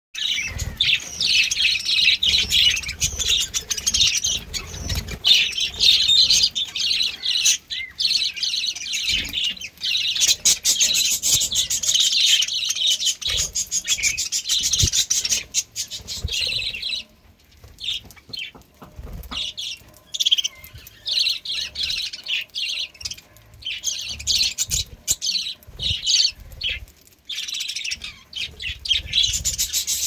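A flock of budgerigars chattering and warbling: a dense, continuous stream of high chirps that thins out briefly a few times in the second half.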